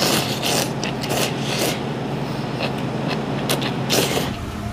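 A person slurping instant ramen noodles: a quick run of short, noisy sucks, about seven in four seconds, with the strongest near the end, over a steady low hum.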